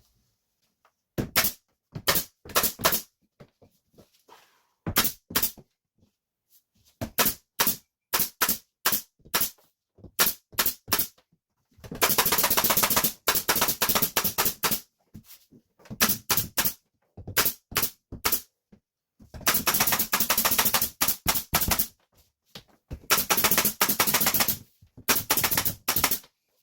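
Pneumatic nail gun fastening drywall, firing sharp shots: a few single shots and short runs, then long rapid runs of shots fired in quick succession.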